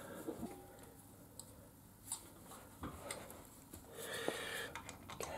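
A new spin-on oil filter being turned onto a motorcycle engine by hand: faint scattered clicks and rubbing, with a brief rustle about four seconds in.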